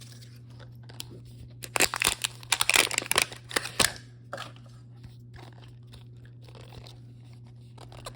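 Packaging of a blind-box toy being torn open by hand: a burst of irregular tearing and crinkling about two to four seconds in, then a few lighter rustles as it is handled.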